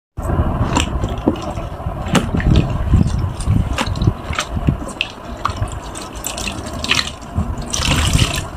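Wet foam sponges pressed by gloved hands in a plastic tub, with water splashing and dripping in sharp wet clicks. Near the end a sponge is squeezed and water runs out of it.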